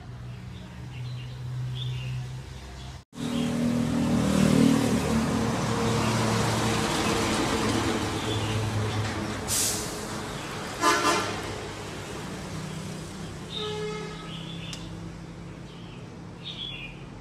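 Street traffic: a motor vehicle passes close by, loudest a few seconds in. A short horn honk comes about eleven seconds in, and a fainter one a few seconds later.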